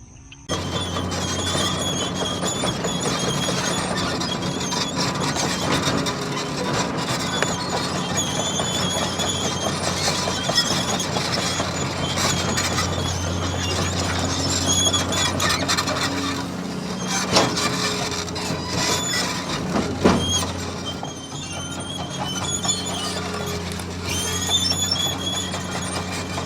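Radio-controlled toy bulldozer running, its electric drive giving a steady low hum under a high, wavering mechanical squeal, with a couple of sharper knocks past the middle.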